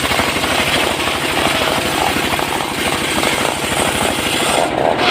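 Engine-driven wood saw running hard while cutting mahogany, with a rapid, even engine beat under the cutting noise. The high cutting noise thins out near the end.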